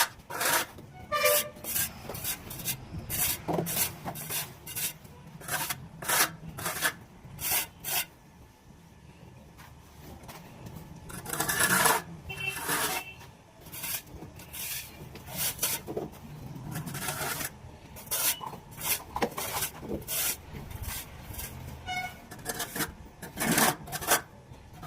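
Repeated rasping scrapes of a hand tool across cement plaster, cutting a water-drip groove (water patti), in irregular strokes with a short pause about a third of the way through.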